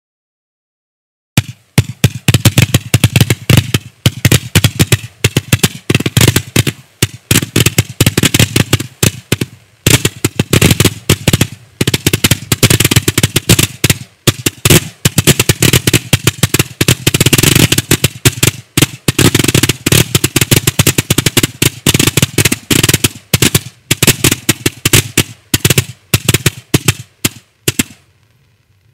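Kimbolton 'Obelisk' 300-shot firework cake (30 × 12 mm tubes of brocade crown comets) firing its comets in a loud, rapid string of shots. It starts about a second and a half in and stops shortly before the end.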